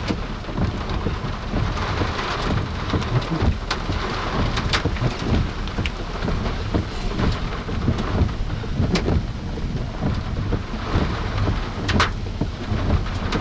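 Heavy rain pelting a vehicle's roof and windshield, with many sharp single drop impacts over a steady low rumble.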